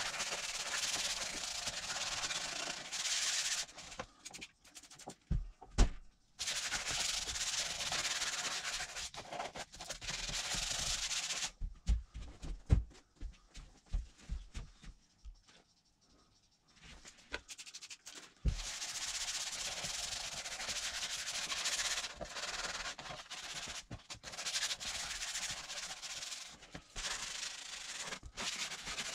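Hand wet-sanding of a plastic ATV body panel with a sanding pad: long stretches of steady scrubbing strokes, scuffing the plastic before paint. These are broken twice, early on and in the middle, by pauses with a few sharp knocks and taps as the panel is handled.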